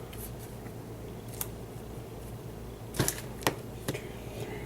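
A few light, sharp clicks and taps of baseball trading cards being handled and set down, the loudest about three seconds in and again half a second later, over a low steady hum.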